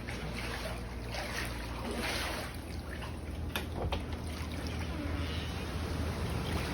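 Floodwater sloshing and trickling, with a low rumble and a few faint knocks.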